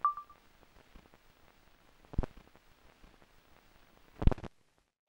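Logo sting sound effects: a short high ping, then two sharp deep hits about two seconds apart, the second the loudest.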